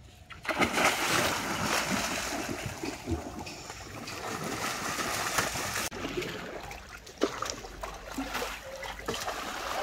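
Water splashing and streaming off a wet cast net as it is hauled up out of the water over the side of a wooden boat; the sound cuts off abruptly about six seconds in. After that, quieter water lapping with a single sharp knock.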